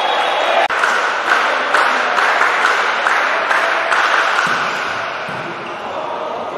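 Applause and clapping in an indoor sports hall after a volleyball point is won, with a brief dropout under a second in.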